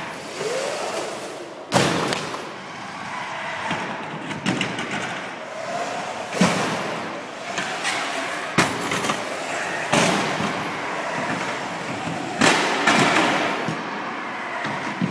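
Radio-controlled combat robots driving on wooden skatepark ramps: electric drive motors whine up and down over a continuous rumble of wheels on the boards. Five sharp knocks and slams break in as the robots land, bang into the ramps or hit each other.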